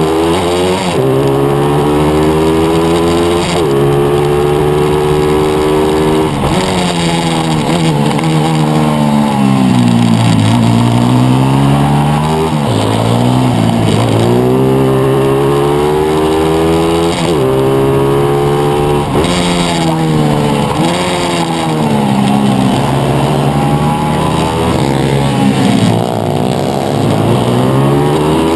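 Pit bike engine revving hard, the pitch climbing through each gear and dropping back as it shifts and slows for corners, several times over.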